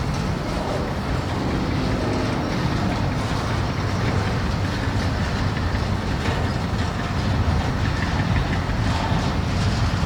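A freight train rolling past: a steady rumble of rail cars' wheels on the track.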